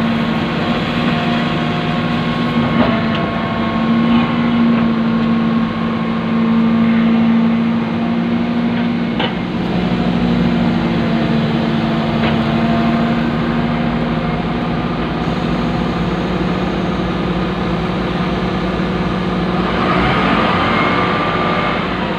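Excavator's diesel engine running steadily, heard from inside the cab as the boom and bucket work, its note shifting a little lower about halfway through.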